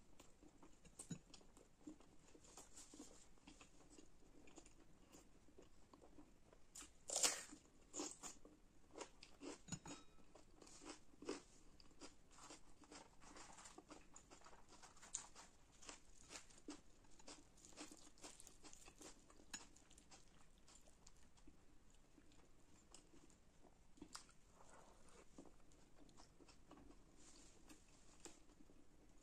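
Chewing and mouth sounds of a person eating bhatura and chickpea curry, with many small wet clicks and a louder crackle about seven seconds in. The bhatura is torn by hand midway.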